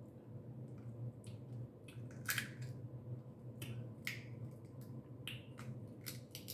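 Blue crab shells cracking and snapping as they are broken apart by hand for eating: a run of sharp, irregular cracks with wet squishes between them, the loudest about two seconds in.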